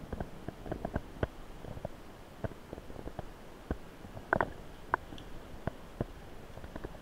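Underwater sound picked up by a submerged camera: a low water rumble with many scattered short clicks and pops, two of them louder about four and five seconds in.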